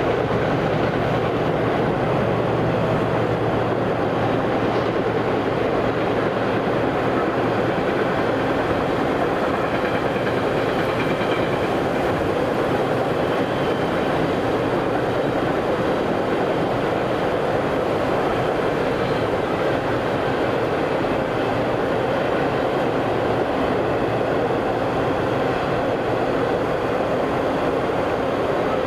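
A train passing, its cars rolling steadily over the rails in an unbroken rumble.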